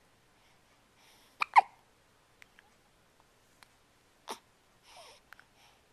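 A person hiccuping twice. The first hiccup, about one and a half seconds in, is the loudest and has a short squeak that falls in pitch. The second comes about three-quarters of the way through, with soft breaths between the two.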